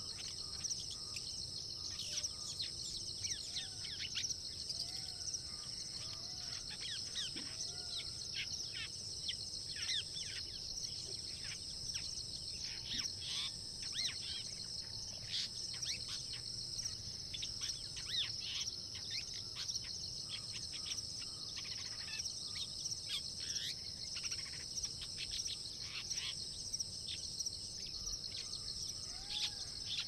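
Long-tailed shrike's sub-song, its soft rehearsal of full song: a rambling run of short chirps and quick downward-sweeping notes, with occasional low, arched whistles, over a steady high-pitched background drone.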